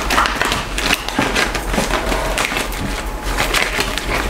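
Tarot cards being gathered up and shuffled by hand: a continuous run of quick, papery card slaps and rustles.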